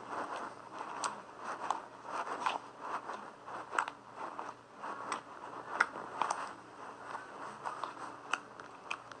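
Homemade slime being squeezed, stretched and folded by hand, making an irregular run of small wet clicks, pops and crackles.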